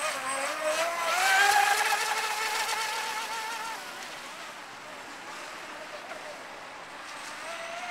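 Brushless electric motor of a Surge Crusher RC speedboat whining at high speed on the water. The pitch rises and the whine peaks in the first two seconds, fades away about four seconds in, then swells again near the end.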